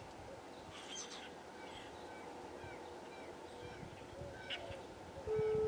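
Faint outdoor background with a few scattered short bird chirps. In the last half second a loud, steady, single-pitched tone cuts in abruptly.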